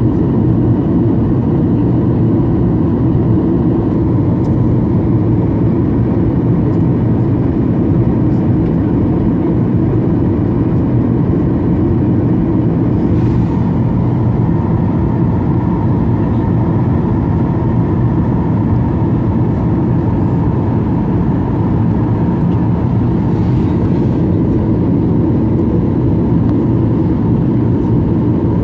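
Boeing 737 cabin noise on descent: a steady rumble of engine and airflow with a thin steady whine over it, unchanging throughout.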